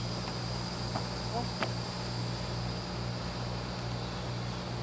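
Insect chorus outdoors: a steady, high-pitched buzzing drone over a low, even hum, with a faint tick about a second and a half in.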